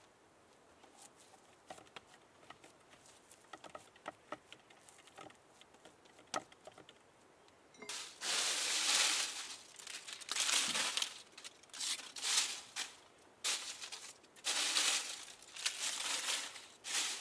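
Dry leaves crumpled and rustled by hand in a series of loud crackling bursts, starting about halfway through. Before that there are only faint scattered ticks and taps.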